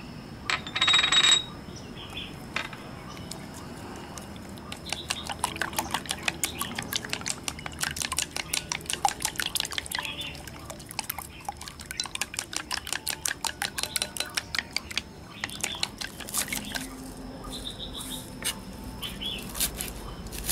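Wooden chopsticks beating eggs in a glass bowl, clicking against the glass at about four strokes a second for several seconds, with a brief louder rattle about a second in. Near the end, a knife chops green onions on a wooden cutting board.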